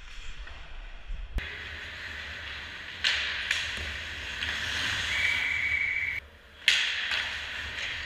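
Ice hockey rink noise: skates hissing and scraping on the ice as play goes on, with sudden loud scrapes about three seconds in and again near the end. A short steady high tone sounds for about a second in the middle.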